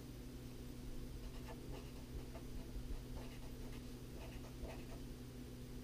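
Light blue marker drawing and writing on paper: faint, short scratching strokes as the tip moves across the sheet, over a steady low hum.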